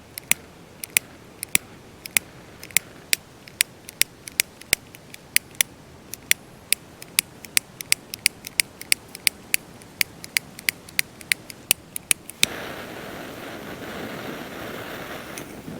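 Cigar lighter's igniter clicking over and over without catching, two or three sharp clicks a second. About twelve seconds in it lights and gives a steady hissing flame, turned up big by the owner's tweaking of the lighter.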